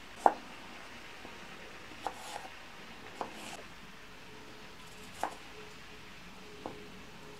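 A few light, sharp knocks and clicks over a faint steady hiss; the first, about a third of a second in, is the loudest.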